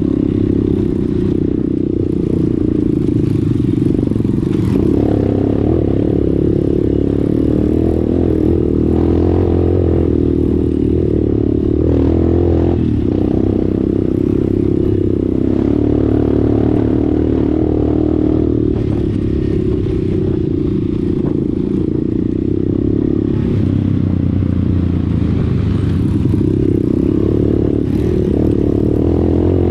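Dirt bike engine running under the rider on a rough dirt trail, its pitch rising and falling with the throttle, with occasional knocks and clatter from the bumpy ground.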